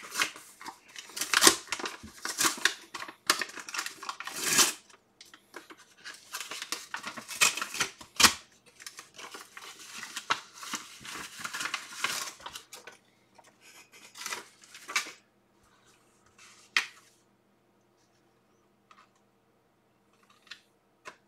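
A paper envelope being torn open and handled, with a run of rasping rips and crinkles for about the first dozen seconds. A few separate light paper clicks follow before it falls quiet.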